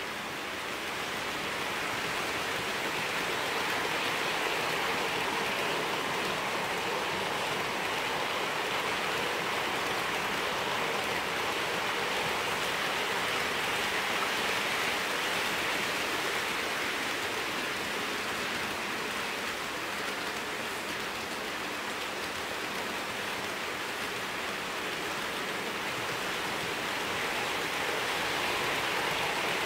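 OO gauge model trains running on the track: a steady rushing whir of metal wheels on rail and small electric motors, swelling a little and easing off again as the trains circle.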